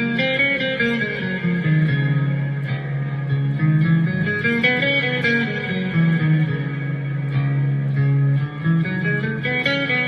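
Electric guitar playing a mode as single notes stepping up and down the scale over a steady low drone note, the drone held as the tonal centre for the run.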